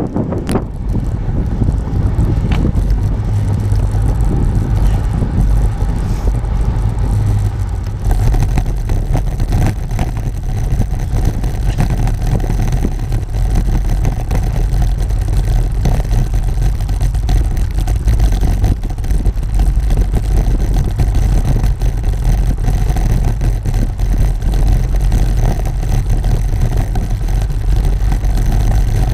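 Continuous ride noise from a camera on a bicycle: the road surface rattling and rumbling through the bike, with wind on the microphone. About eight seconds in the rumble turns heavier and coarser, as the bike rolls over Belgian block cobbles.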